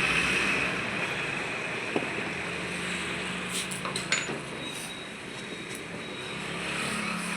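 Steady mechanical running noise of a vehicle engine, with a high whine that fades over the first couple of seconds and a few light metallic clicks.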